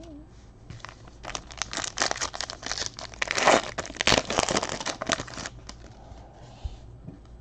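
Plastic foil trading-card pack wrapper being torn open and crinkled, a dense crackling from about a second in, loudest in the middle, dying away about five seconds in as the cards slide out.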